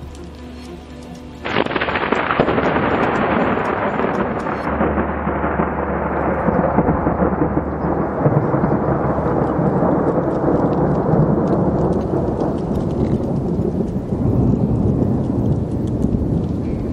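Thunder from a lightning strike: a sudden loud crack about a second and a half in, then a long rolling rumble that slowly grows duller in tone and keeps going.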